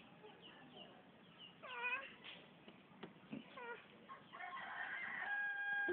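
Animal calls: a few short, meow-like cries, then one long steady call near the end.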